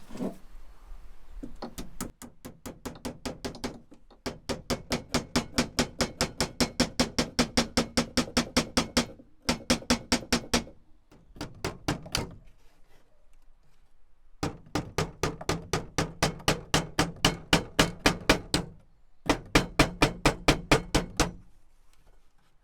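Rapid, even knocks on a wooden surface, about five a second, in runs of several seconds separated by short pauses.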